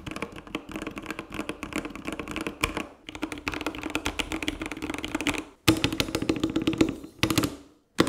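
Typing on an Epomaker TH66 65% mechanical keyboard with Gateron Pro switches and PBT die-sub keycaps: fast runs of keystroke clacks with short breaks just after 3 s and at about 5.5 s. The typing stops about half a second before the end.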